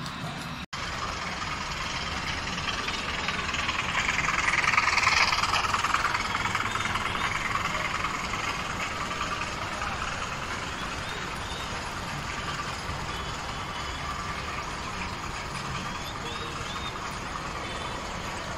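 A model train running on the layout, its motor and wheels making a steady whirring hum that builds to a peak about five seconds in, as it passes close, then slowly fades. There is a brief break in the sound just under a second in.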